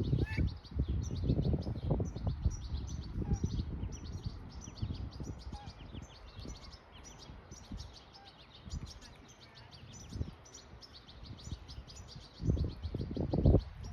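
Many small birds chirping rapidly and continuously. Low rumbling bursts, like wind or handling on the microphone, come in over the first couple of seconds and again near the end.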